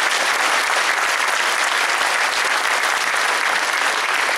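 Audience applauding steadily, a large crowd clapping to welcome a speaker introduced at the podium.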